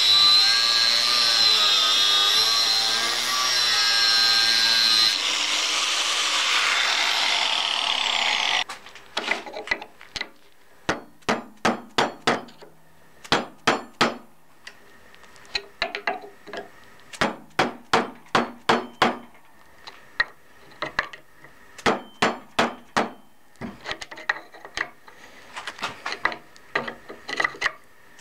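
Angle grinder with a cut-off disc cutting into the steel core of a microwave oven transformer with a steady high whine, stopping abruptly about nine seconds in. Then a hammer strikes a chisel set in the cut on the transformer core, in quick runs of sharp metal blows with short pauses between.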